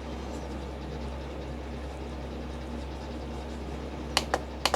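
Keys on a foldable Bluetooth keyboard clicking four or five times in quick succession about four seconds in, over a faint steady low hum.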